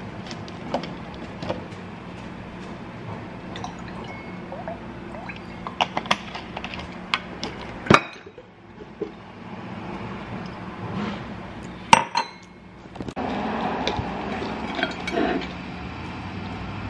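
Orange juice poured from a bottle into a stemless drinking glass, with sharp clinks and knocks as glass and bottle are set down on the countertop.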